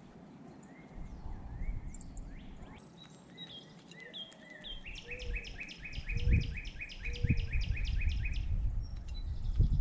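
Wild songbirds calling: a few short rising chirps, then about halfway through a rapid run of about fifteen descending chirps, about five a second. Low thumps and rumble sit underneath, loudest about six seconds in.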